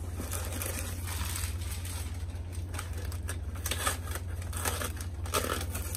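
Brown kraft packing paper crumpling and crinkling in irregular bursts as hands dig through it inside a cardboard shipping box.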